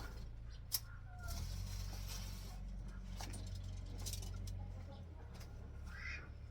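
A few short bird chirps over a steady low rumble, with a stretch of scraping rustle in the first half.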